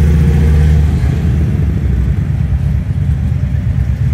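Motorcycle engine running close by with a loud, deep, steady rumble. The rumble turns rougher and less even after about a second and a half.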